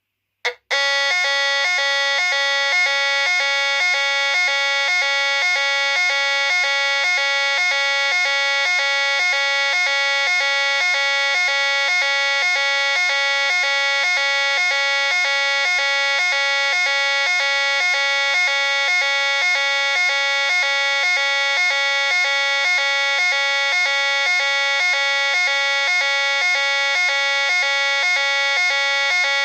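Old grey fire-alarm siren sounding the French NF S 32-001 evacuation tone: a buzzy two-tone pattern that alternates in an even, rapid repeat. It starts about half a second in, after a brief click.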